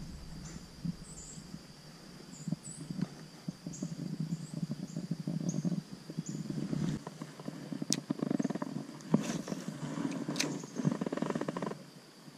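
Water sloshing and splashing around a landing net held in a shallow stream as a caught trout is released, with small crackles and a few sharp clicks, busier in the second half. Behind it are a steady thin high whine and short repeated high chirps.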